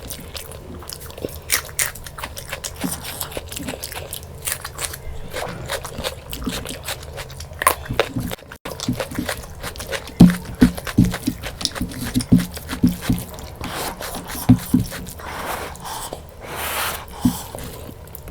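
Close-miked eating of mutton curry and rice: chewing and biting with many short crisp clicks, and a run of louder thumps about ten to fifteen seconds in.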